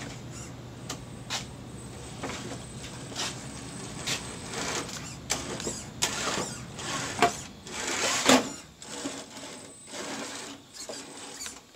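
Traxxas TRX-4 RC crawler climbing over loose wooden slats and blocks: its electric motor and drivetrain whir in spurts under many knocks and clacks of tyres and chassis on the wood, busiest and loudest about six to nine seconds in.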